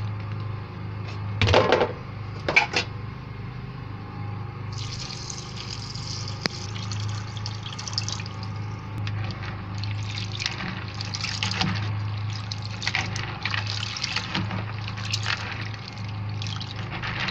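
Brown beans being washed in a plastic bowl: water runs in from about five seconds, then the beans slosh and splash in the water again and again as they are stirred and rubbed by hand. A couple of knocks come in the first few seconds, over a steady low hum.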